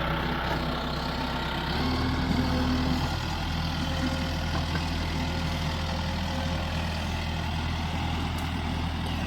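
Vehicle engine running steadily, its note changing about two seconds in.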